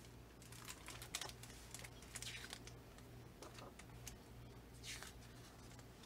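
Faint handling of a hardcover picture book: scattered soft taps and clicks as it is set down and opened, and a soft rustle of pages turning twice. A low steady hum runs underneath.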